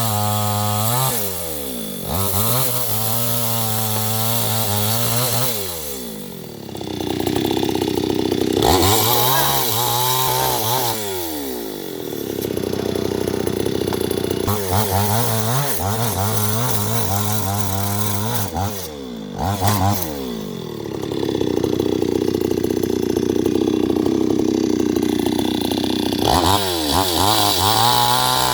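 New West 628 two-stroke chainsaw revving up to full throttle and dropping back to idle several times, with longer high-revving stretches as it cuts through wood.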